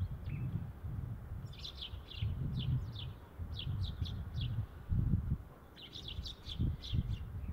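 Sparrows chirping: several quick runs of short, high chirps, over an uneven low rumble.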